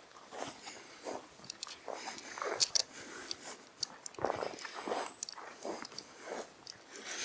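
Irregular crunching and rustling with scattered sharp clicks, the sharpest about two and a half seconds in.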